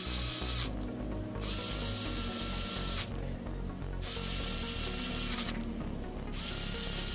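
Electric screwdriver running in short bursts of one to one and a half seconds, about four times, each with a steady whine, as it drives the gear-housing screws of an angle grinder home. Background music plays underneath.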